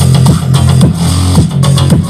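Electronic dance music with a heavy bass line, played at 100% volume through a Blaupunkt SBA15 15 W Bluetooth soundbar and picked up by a microphone. At full volume the reviewer hears slight distortion and a muffled sound.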